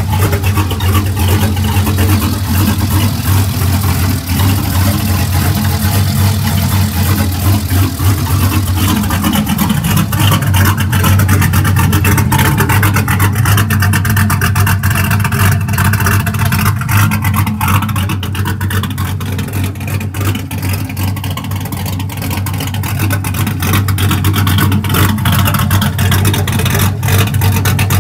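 Swapped 6.0-litre LS V8 with a stage 4 TSP camshaft, in a Ford Lightning clone truck, running steadily at idle.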